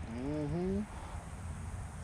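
A short voiced sound rising in pitch in the first second, then a low steady rumble and hiss.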